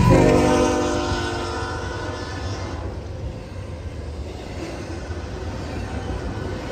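Locomotive horn sounding as a train passes, its chord dropping in pitch right at the start and fading out about three seconds in. A steady low rumble of the train rolling by continues underneath.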